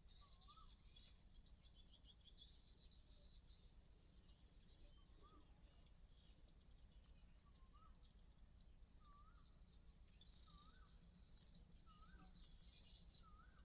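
Faint outdoor birdsong: soft short warbled notes repeating every second or two, with a few brief sharp high chirps standing out, over a steady high hiss of background noise.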